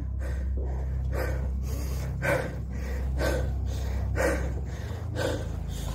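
A person breathing hard, in and out roughly once a second, over a steady low hum.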